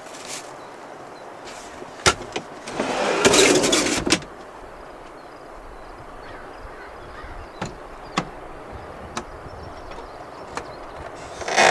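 Handling sounds while food and gear are got out for breakfast: a sharp click, then a rustle or scrape of about a second, and scattered light clicks and knocks after it, with another short rustle near the end.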